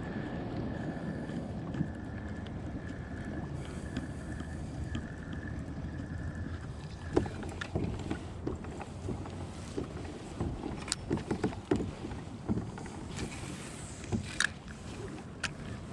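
Water and wind noise around a fishing kayak. A thin steady whine runs for about the first seven seconds, then gives way to a scatter of sharp clicks and knocks.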